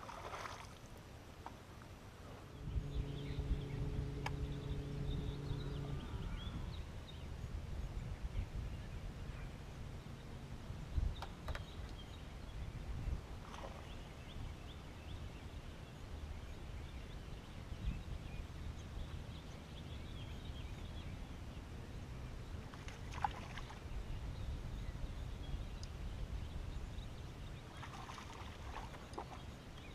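Low rumbling wind-and-water noise around a fishing boat on the water. A steady hum sounds for about three seconds starting near three seconds in, and a few light clicks come through now and then.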